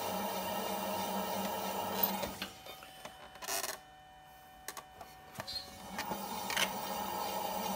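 Electric potter's wheel running with a steady hum while a metal trimming tool shaves the spinning clay. About two seconds in it stops with a click, leaving it much quieter with a brief scrape and a few small taps of handling. The wheel starts running again about six seconds in.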